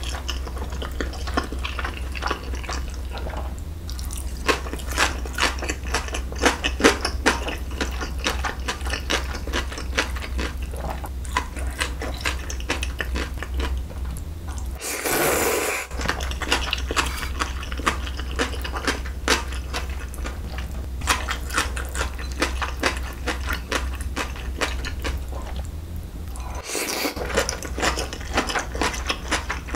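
Close-miked eating of cold milmyeon wheat noodles in broth: wet chewing with many small clicks, and two longer slurps, about halfway and near the end.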